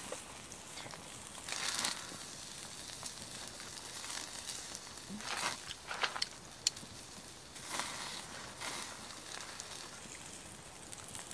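Wood fire burning under a wire grill of meat skewers, crackling and sizzling in short bursts, with a few sharp pops about halfway through.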